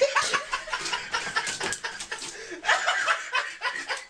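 A person laughing in short, choppy bursts.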